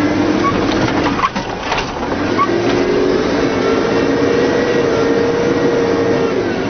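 A vehicle driving slowly through traffic: steady engine and road noise with a whine that rises gently in pitch partway through, and a few sharp clicks about a second in.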